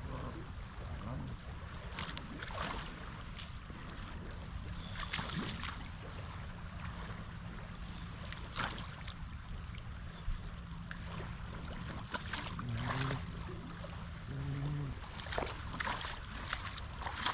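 Steady rushing of a flowing river, with occasional short clicks and rustles on top.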